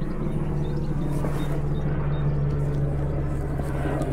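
Coastguard rescue helicopter passing over, a steady rotor and engine drone.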